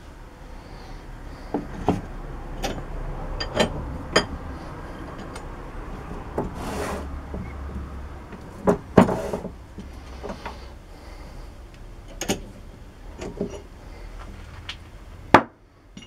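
Scattered clicks and knocks of tools and metal parts being handled at a metal lathe, over a low steady hum. There are two brief rushes of noise near the middle, and a louder knock near the end.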